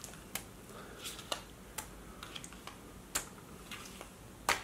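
Metal spoon scooping sour cream out of a plastic tub, with a string of sharp, irregular clicks and taps of the spoon against the tub, the loudest near the end.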